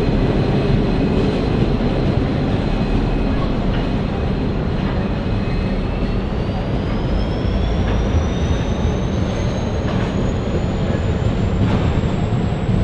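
Diesel-hauled container freight train passing close by: the rumble of the locomotives' engines and the rolling wagons, with occasional wheel clacks. A high whine rises steadily in pitch from about six seconds in as the train gathers speed.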